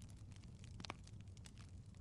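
Wood fire crackling in a fireplace: scattered small pops and snaps over a low rumble, with one sharper pop about halfway through.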